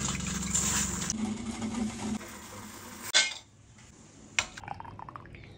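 Stainless-steel kitchenware clinking and knocking while tea is made: a spoon at a steel pan of heating water, then a cup and a steel saucer set down. A hiss fills the first second, there is a louder knock about three seconds in, and a sharp clink comes near four and a half seconds.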